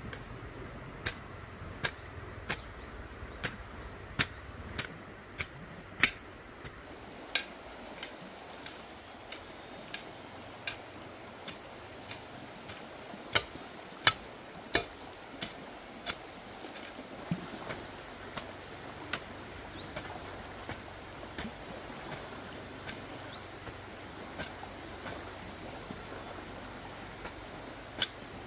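A run of sharp clicks or snaps, roughly one every three-quarters of a second and fairly evenly spaced, a few of them much louder than the rest. A steady high-pitched tone runs beneath them.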